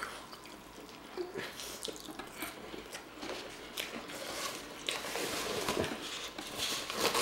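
Close-up chewing of a sandwich with a crispy battered cod fillet: moist, crunchy mouth sounds with many small irregular clicks. A rustle of a paper towel roll being handled comes in partway through.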